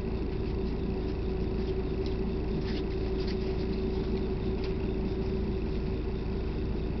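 Steady rumble and hum of a vehicle's interior, with a few faint clicks or rattles around the middle.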